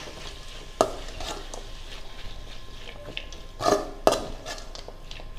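Metal spatula stirring and scraping through grated coconut and sautéed mint leaves in a metal kadai, with louder knocks of the spatula against the pan about a second in and twice near four seconds.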